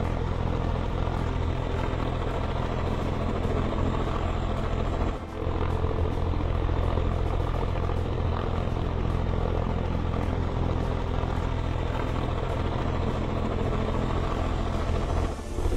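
Helicopter rotor and engine noise, a steady heavy thrum, as the helicopter hovers low while landing. The sound drops out briefly about five seconds in and again near the end.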